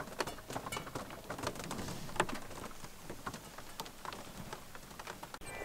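Rain pattering on a campervan, heard from inside: a steady hiss with many irregular sharp drop strikes. It cuts off suddenly near the end.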